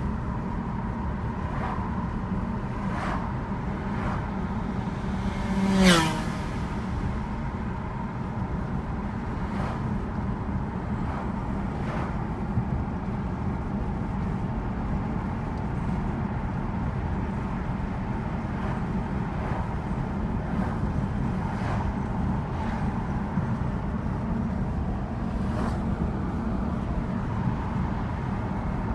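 Steady engine and tyre noise inside the cabin of a 2006 BMW 325xi cruising at about 65–70 km/h. About six seconds in there is one short, loud sound with a falling pitch.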